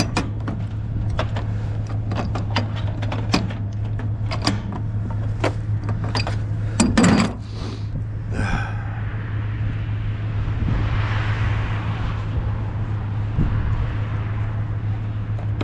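Knocks and clanks of scrap metal being handled over a steady low hum, with a louder clatter about seven seconds in and a rough scraping rustle a few seconds later.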